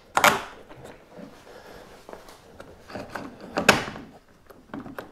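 Clicks and scrapes of a stainless steel bolt being pushed by hand up through a plastic kayak rudder's hinge and steel mounting bracket. The two loudest scrapes come just after the start and about three and a half seconds in.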